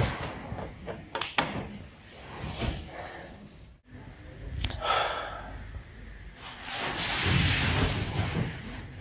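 Handling noises: a couple of sharp knocks, then a broad rustle of bedsheets and a pillow being moved that swells near the end.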